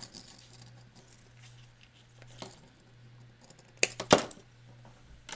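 Hands handling a wire sculpture armature and its fastenings: faint rustling and light clicks over a steady low hum, then two sharp, loud clicks close together about four seconds in.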